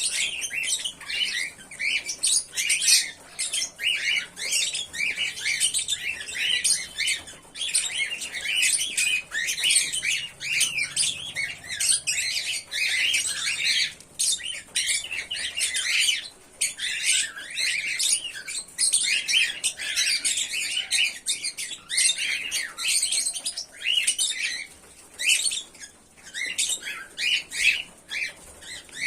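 Pearl cockatiels chirping, a dense run of short overlapping calls with only brief pauses.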